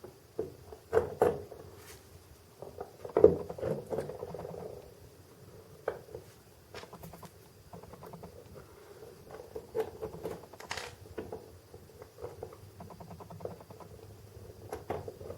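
Small, irregular clicks, taps and light scrapes of small diecast model parts and hand tools being handled and pressed together at close range, the loudest tap about three seconds in.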